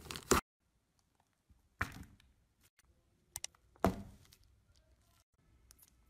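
Slime being handled: a brief crackling that cuts off suddenly, then two soft thumps about two seconds apart, with a couple of small clicks between them.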